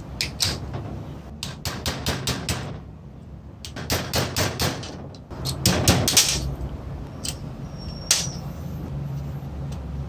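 Rusty manual typewriter mechanism clicking and rattling as its parts are worked by hand: short runs of quick metal clicks, about five a second, in the first half, then a cluster and a few single clicks, over a steady low hum.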